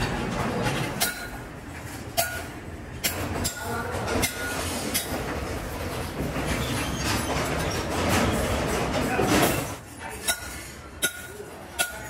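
Steel wire mesh panels rattling and scraping against each other as they are handled. Sharp metal-on-metal taps with a short ring come about a second apart near the start and again near the end.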